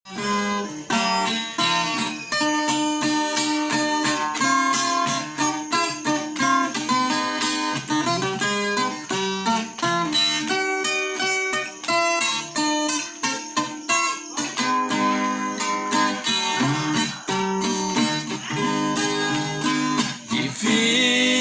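Viola caipira playing an instrumental introduction, a plucked melody over strummed chords.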